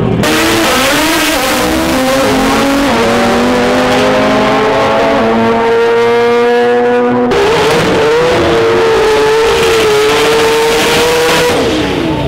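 Drag racing car engines held at high revs during burnouts, with tyre noise. The first engine note climbs slowly, then the sound cuts abruptly about seven seconds in to another car's engine held high and wavering.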